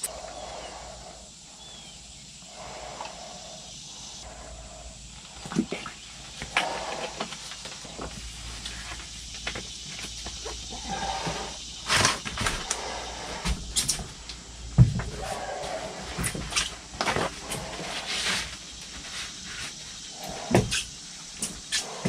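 Plastic jugs and mixing cups handled and set down while two-part flotation foam is poured and mixed: scattered knocks and clicks, with soft hissing sounds between them.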